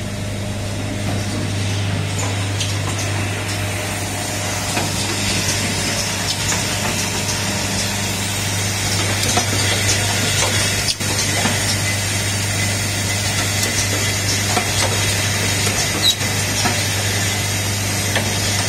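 Automated switch-part assembly machine running: a steady low hum under a haze of hiss, with scattered small clicks and clacks from its pneumatic cylinders and parts.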